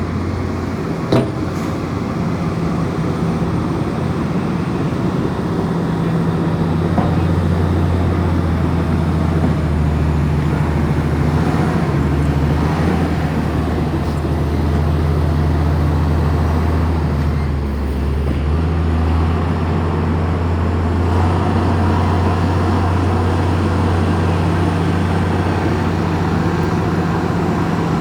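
Komatsu bulldozer's diesel engine running steadily, a deep drone that grows a little louder about six seconds in. A single sharp click comes about a second in.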